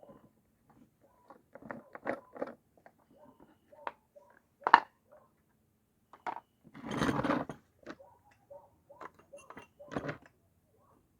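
Irregular metallic clicks, clinks and knocks of tools and small chainsaw parts being handled during clutch work, with a short rushing burst of noise about seven seconds in.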